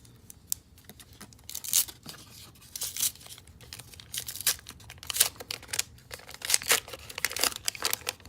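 A baseball card pack wrapper being torn open and crinkled, making a run of sharp, irregular crackles.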